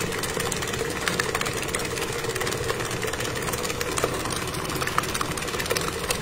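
Electric stand mixer running steadily, its paddle beating softened cream cheese and butter in a stainless steel bowl: a constant motor hum with a steady mid tone and light clicking.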